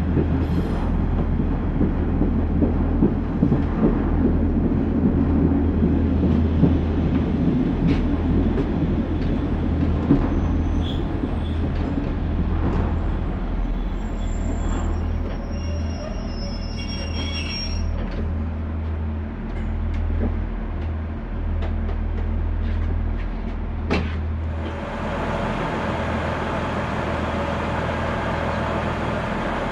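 Class 142 Pacer diesel railbus on the move: a steady low engine drone under wheel and rolling noise, with scattered clicks and short high wheel squeals about halfway through. Near the end a louder hiss comes in across the upper range.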